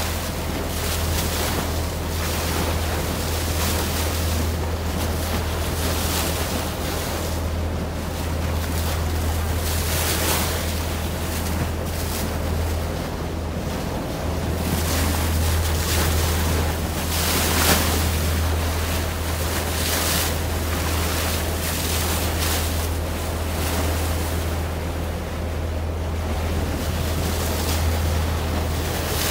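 Steady low drone of a boat's engine under way, with wind buffeting the microphone and water rushing along the hull.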